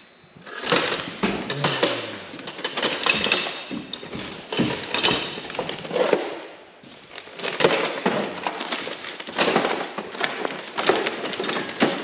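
Irregular metallic clattering and rattling of hand tools and parts being handled, coming in short spells every second or so.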